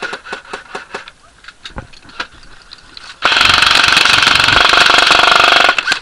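Airsoft electric guns (AEGs) firing: scattered sharp pops for the first three seconds, then a loud rapid full-auto burst close by, lasting about two and a half seconds.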